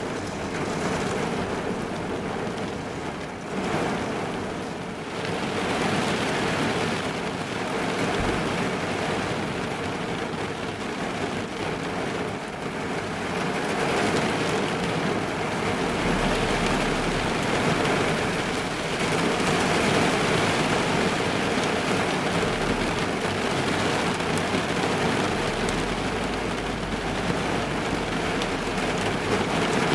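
Heavy rain falling on a car, heard from inside the cabin as a steady, dense patter with small swells in strength.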